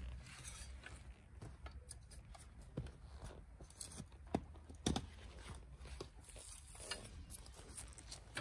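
Digging fork being pushed into garden soil and levered, lifting a dahlia root ball: scattered crunches and scrapes of earth and roots, with two sharper knocks about halfway through.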